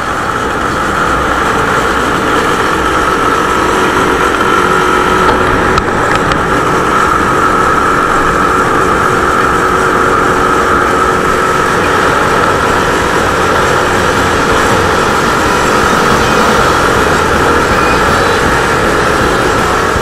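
Motorcycle riding at steady expressway speed, heard from an on-board camera: engine running with heavy wind and road noise, steady throughout with a constant whine in it.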